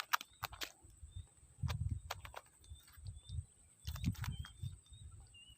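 Scattered sharp clicks and low thumps of close handling as a freshly caught swamp fish and the fishing tackle are dealt with. Under them runs a steady high-pitched insect drone, with a few short bird chirps.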